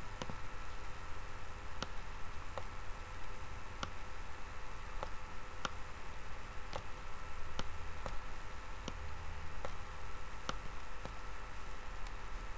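Computer mouse button clicks, a dozen or so sharp single clicks spaced irregularly, as the pointer picks colours and moves gradient stops in a graphics program. A steady hiss and low hum from a microphone turned up high sits under them.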